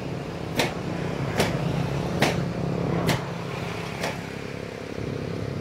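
A motor engine running steadily, with a sharp knock repeating a little more than once a second, five times, stopping about four seconds in.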